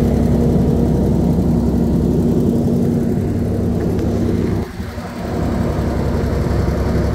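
Rolls-Royce C6T six-cylinder turbocharged diesel engine of a 260 kVA generator set running at a steady speed, a continuous even drone. The level dips briefly a little before five seconds in, then comes back.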